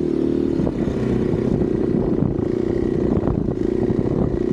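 KTM 500 EXC-F dirt bike's single-cylinder four-stroke engine running at a steady speed under way, with a low rumble beneath it.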